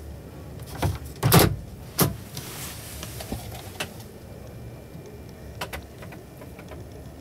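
Plastic lid of a truck's dashboard storage compartment being shut, a few sharp knocks with the loudest about one and a half seconds in, then steady background noise of a busy hall.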